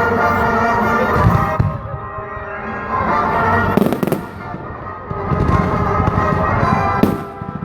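Fireworks going off over music: low booms about a second in and again after five seconds, and a sharp crack about four seconds in.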